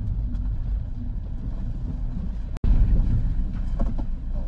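Steady low road and engine rumble of a car heard from inside the cabin while driving. It drops out for an instant a little past halfway, then carries on slightly louder.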